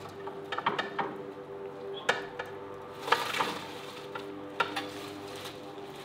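Crisp fried chicken nuggets being tipped from a paper-towel-lined metal tray onto a plate: a few sharp clinks of metal and of the tray against the plate, and a scrape with paper rustling about three seconds in, over a faint steady hum.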